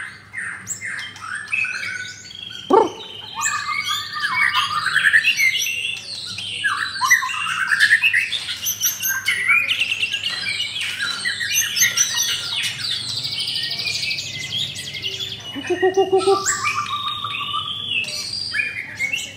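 White-rumped shama (murai batu) in full song: a long, unbroken run of varied rich whistles, fast trills and chattering phrases. A sharp falling note comes about three seconds in, and a few lower notes near the end.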